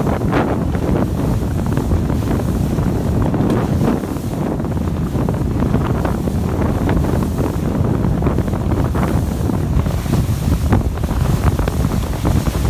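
Heavy wind noise buffeting the microphone over rushing, splashing water from jet skis running fast across choppy waves.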